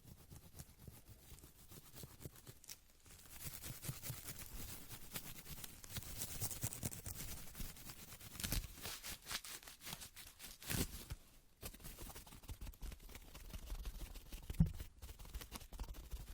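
Close-miked ASMR trigger sounds: rapid clicks and scratchy rustling. They are faint for the first three seconds, then grow busier, with a few sharper clicks later on.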